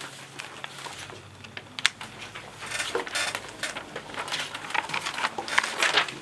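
Paper sheets rustling and being shuffled on wooden desks, with a sharp click about two seconds in and a dense run of crackling, rustling handling noise through the second half.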